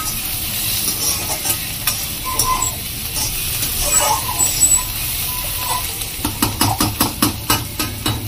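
Perforated steel spatula scraping and stirring bitter gourd, potato and onion frying in a kadhai over a steady sizzle on a high gas flame. The scrapes come quicker, several a second, over the last couple of seconds.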